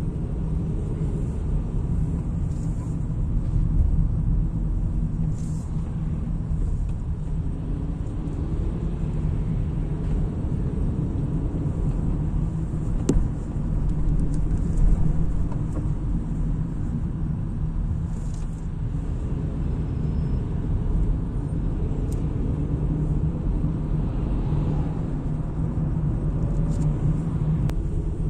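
Steady low rumble of a car driving in city traffic, heard from inside the cabin: engine and tyre noise, with a few light clicks.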